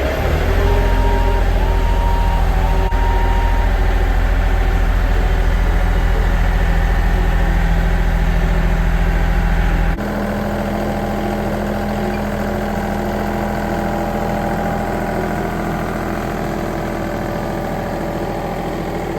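Yanmar EG334 tractor's diesel engine idling steadily. About halfway through, the sound shifts abruptly, becoming a little quieter with less deep rumble.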